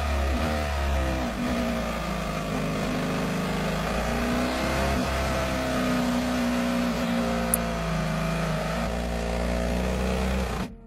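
Onboard sound of a Mercedes Formula 1 car's turbocharged V6 hybrid power unit during its engine failure, a steady drone that shifts in pitch now and then rather than revving up through the gears, as the car slows. The sound cuts off suddenly near the end.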